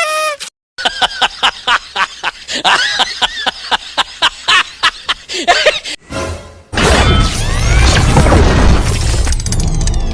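Edited sound effects with music: a quick run of short clicking, chirping effects about four a second, then from about seven seconds in a loud, dense crashing clatter of effects.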